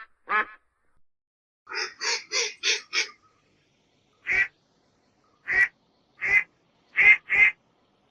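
Duck quacking: a quick run of five quacks about two seconds in, then single quacks spaced about a second apart, the last two in quick succession near the end.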